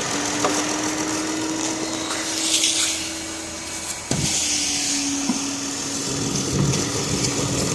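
Ford Fusion engine idling with a steady whine and hiss, with a sharp click about four seconds in. The engine has a hard misfire, traced to rodent-chewed wiring.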